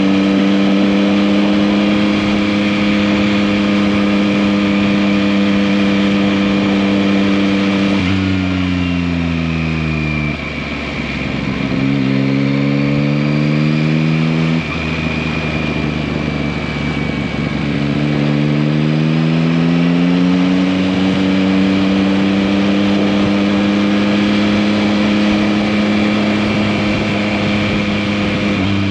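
Yamaha MT-09 (2021) inline three-cylinder engine under way. It holds a steady engine speed, then its pitch falls and shifts in steps from about eight seconds in. It climbs back from around eighteen seconds and settles into a steady cruise.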